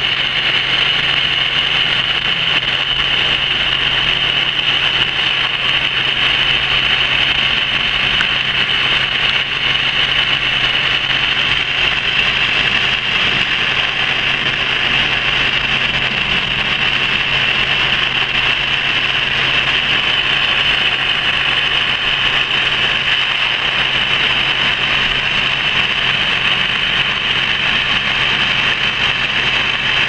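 CO2 laser cutter running as it cuts MDF: a steady, even hiss with a high edge and a low hum underneath.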